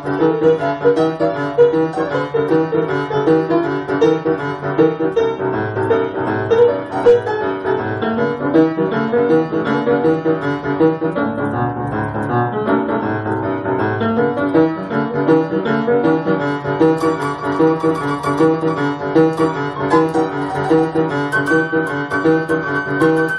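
Upright piano played fast in boogie-woogie style, both hands going, over a steady repeating bass pattern. Near the end a single high treble note rings on.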